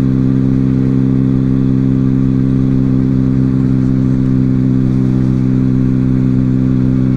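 Benelli motorcycle with an aftermarket exhaust cruising at a steady throttle: an even engine drone that holds one pitch.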